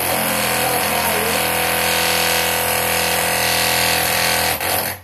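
Loud, steady mechanical noise from a running motor or machine, a droning hum over a hiss, stopping abruptly near the end.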